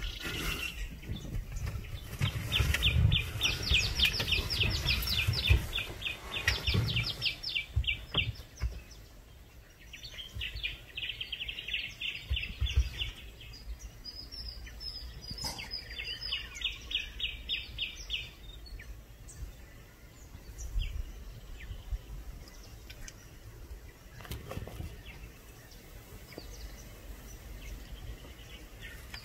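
A bird calling in three runs of fast, evenly repeated high notes, the first run the longest, over a low rumble.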